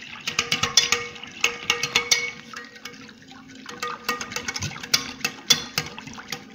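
A wire whisk beating a liquid batter of egg yolks, milk and oil by hand in a ceramic bowl: quick, irregular clicks of the wires against the bowl with the liquid sloshing. A steady low hum runs underneath.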